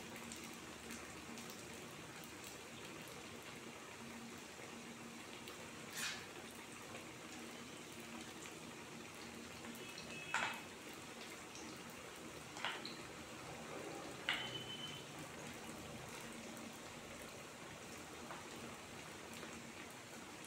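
Battered plantain fritters deep-frying in coconut oil: a faint, steady sizzle with four sharp pops and crackles from the hot oil.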